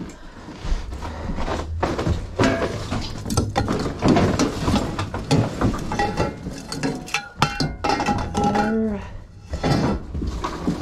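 Clattering and clinking of household junk being handled and tossed, a busy run of irregular sharp knocks and rattles.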